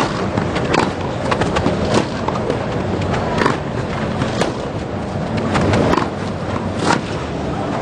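Tennis ball struck back and forth with racquets in a rally on a grass court: sharp knocks roughly once a second, over the steady background noise of the crowd.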